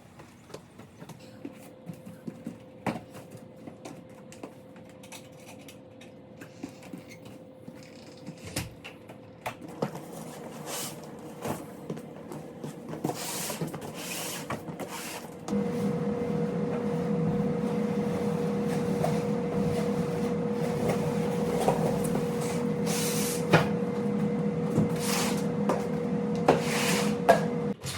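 Knocks, clicks and rubbing from squat rack parts being handled during assembly, over a steady machine-like hum that becomes much louder about halfway through and cuts off suddenly at the end.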